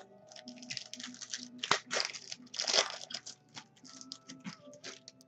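Wrapper of a trading-card pack being torn open and crinkled, a quick series of short crackling rustles.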